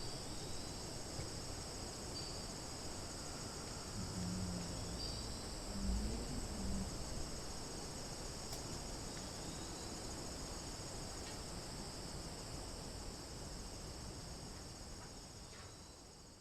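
Steady high-pitched chorus of crickets and cicadas, with a brief low rumble about four to seven seconds in. The chorus fades out near the end.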